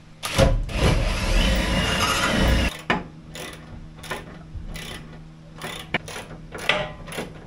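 Hand work on metal fittings: a loud rasping, ratcheting noise lasting about two seconds, then a run of scattered light clicks and knocks.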